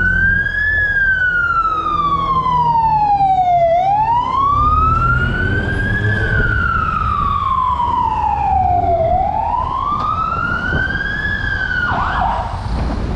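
Fire engine siren wailing, its pitch sliding slowly down and back up about every five seconds, over a low engine rumble.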